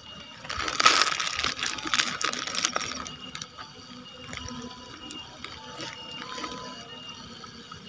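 Crackling, rustling handling noise for a couple of seconds near the start, the sound of fishing tackle being handled while the hook is changed. After it, only faint short high tones over low background noise.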